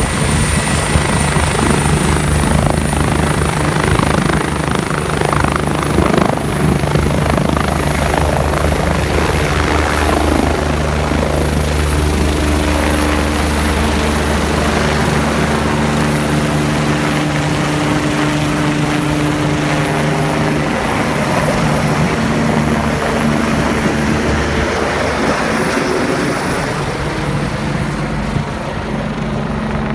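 Air ambulance helicopter running close by as it lifts off and climbs away: a steady loud turbine and rotor sound with a high turbine whine on top, easing a little and losing the whine near the end as it moves off.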